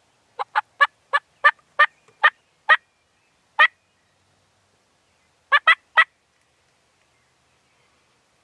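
Turkey calling in short, sharp notes: about nine quick notes over the first three seconds, a single one, then three together a little later.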